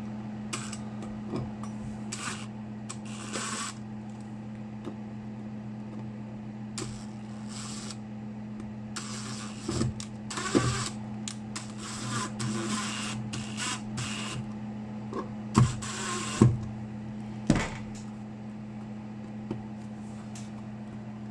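A cover plate being fitted and screwed onto an electrical switch box: scattered clicks, taps and scraping, the sharpest knocks about two-thirds of the way through. A steady low hum runs underneath.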